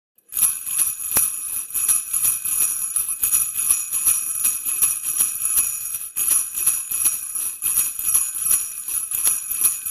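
Sleigh bells jingling, shaken in a steady pulsing rhythm, starting abruptly about a third of a second in.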